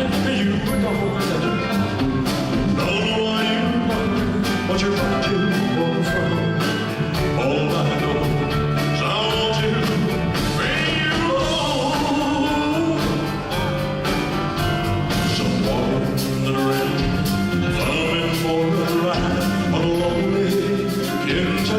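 Live band with horns and backing singers playing a mid-tempo ballad, drums keeping a steady beat, with singing over it.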